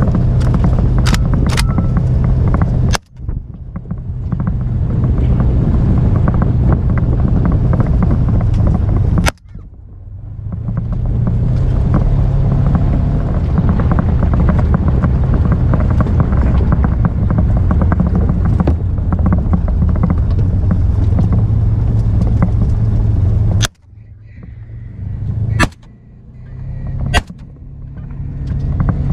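A vehicle's motor running steadily with a low hum under rushing noise as it moves along. There are sharp knocks at a few points, and the sound cuts out abruptly three times, about 3, 9 and 24 seconds in, each time building back up over a second or two.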